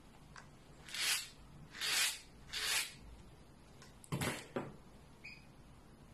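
Three brisk swishes of a pet slicker brush combing through the stiff, starched cotton macrame cord fringe, then a couple of knocks on the table a little after four seconds in.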